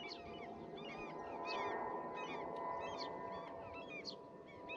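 A chorus of short, repeated chirping animal calls, several overlapping at about three a second, over a faint steady hum.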